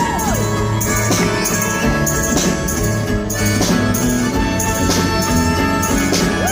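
Live pop-rock band playing an instrumental passage of a song: a steady drum beat with regular cymbal strikes under held guitar and keyboard chords.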